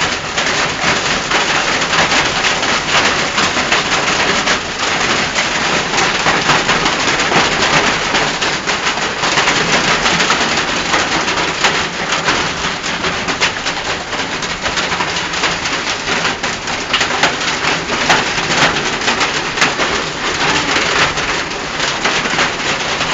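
Hailstones pelting down in a heavy storm: a dense, unbroken clatter of countless small impacts over a steady rush.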